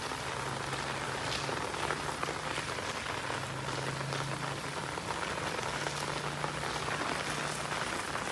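Monsoon rain falling steadily and pattering on surfaces, with a faint low hum underneath.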